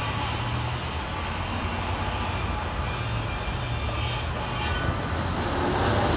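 Steady low rumble of road traffic, vehicles running on a nearby road, growing slightly louder near the end.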